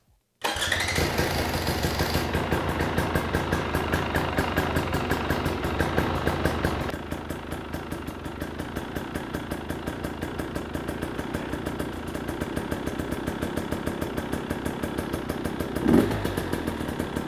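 KTM 250 XC TPI single-cylinder two-stroke engine starting about half a second in and running at a fast, steady idle, then dropping to a lower, pulsing idle about seven seconds in as its idle speed is set. A brief louder burst comes near the end.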